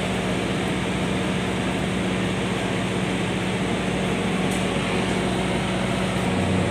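Steady machine noise: a constant hum under an even rushing sound, unchanging throughout.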